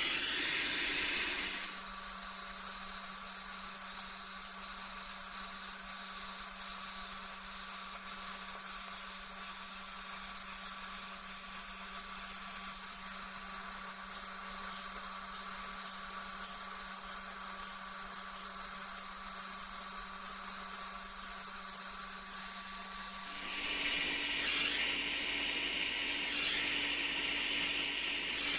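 Brazing torch flame hissing steadily while the aluminium radiator is heated for the brazing rod. The hiss starts about a second in and cuts off suddenly near the end, over a steady hum with faint ticking.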